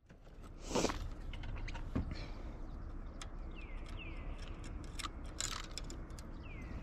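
Fishing reel and rod being worked with the line under strain: irregular sharp clicks and rattles, two brief hissy rushes, and a few short falling squeaks over a low steady rumble.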